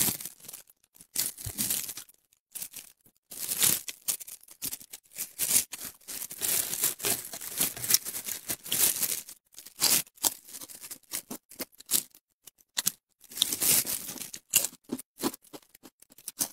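Close-miked eating sounds: crispy fried fish being torn apart by hands in thin plastic gloves, crackling and crinkling in irregular bursts, along with chewing.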